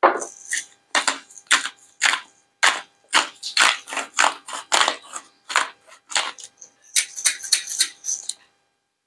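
Hand salt grinder being twisted, crunching salt crystals in short turns about twice a second, with a quicker run of turns near the end.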